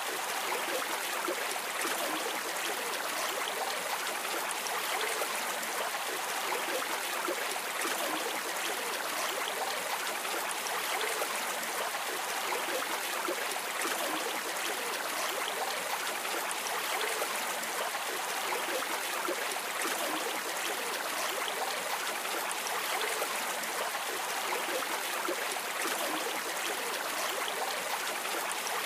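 River water rushing steadily over shallow rapids and stones, an even, unbroken wash of sound.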